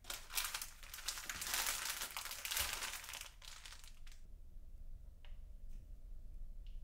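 Crinkling and rustling for about four seconds, then a few faint clicks.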